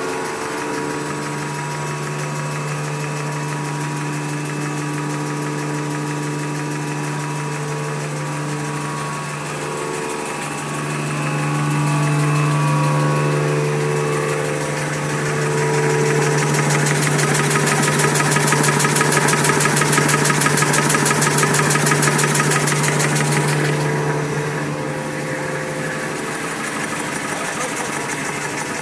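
A steel-to-steel full-embossing V-fold facial tissue machine running: a steady mechanical hum with several held tones. A fast, even clatter rises over the hum past the middle, lasts several seconds, then drops away.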